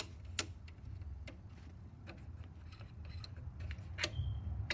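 Irregular sharp metallic clicks and ticks from working the vintage Navy receiver's sliding band-change mechanism, over a steady low hum.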